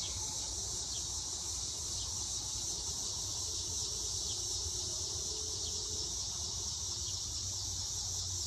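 Steady, high-pitched chorus of crickets and other evening insects, with a faint low rumble underneath.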